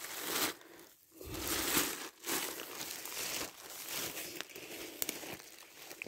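Black plastic bag rustling and crinkling through the first two seconds or so, then a steadier, quieter rustle of steps through dry fallen leaves with small twig clicks.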